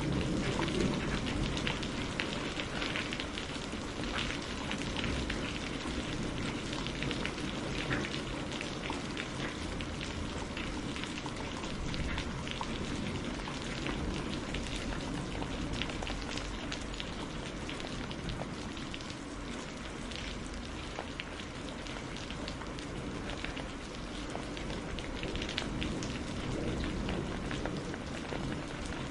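Steady rain falling, with many sharp single drop hits on a surface through the even hiss.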